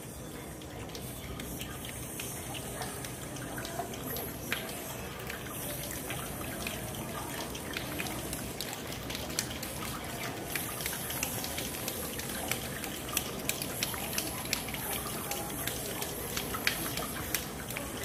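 Choir imitating rain with tongue clicks and finger snaps: many scattered drip-like clicks that grow denser and louder from about halfway.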